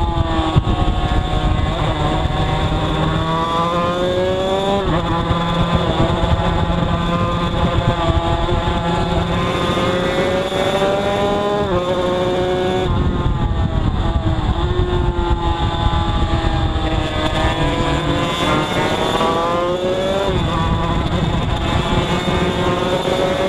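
Two-stroke road-racing motorcycle engine heard from onboard, running hard under acceleration. Its pitch climbs as it revs out and drops sharply several times at gear changes and corners.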